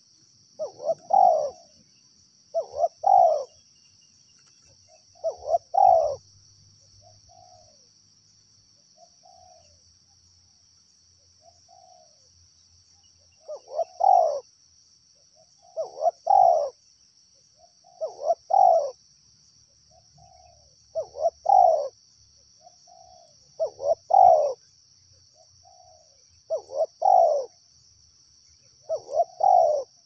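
Spotted doves cooing: loud phrases of two or three notes repeated every two to three seconds, with a stretch of softer single coos in the middle.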